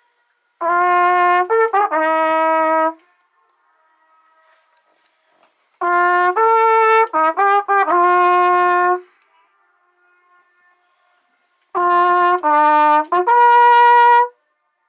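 Trumpet playing three short phrases of a few held notes each, with pauses of about three seconds between them. In the pauses the notes come back faintly as an echo off the lake's rock walls.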